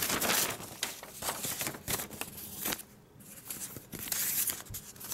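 Sheets of printed paper rustling and crinkling as a folded leaflet is unfolded and leafed through by hand, with a quieter pause about three seconds in.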